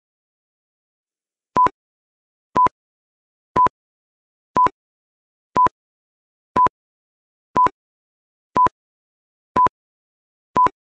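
Countdown timer beeps: ten short electronic beeps, all at one pitch, one a second, starting about a second and a half in, marking off the seconds of the countdown.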